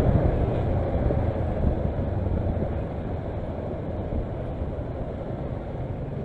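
Kawasaki Versys motorcycle running in slow traffic, its engine and road noise heard as a steady rush on the camera's microphone, easing off gradually as the bike slows.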